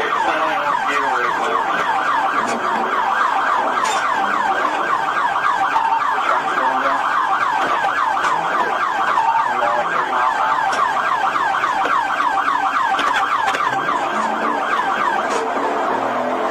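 Police car siren sounding a rapid warble, about seven quick sweeps a second, steady and loud throughout.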